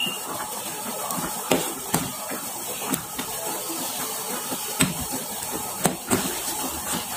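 A spoon stirring in an aluminium pan of boiling broth, knocking against the pan every second or so, over a steady hiss of the boiling liquid.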